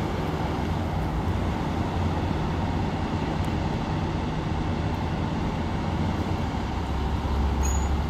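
Steady low engine rumble and street traffic, with a car driving past near the end.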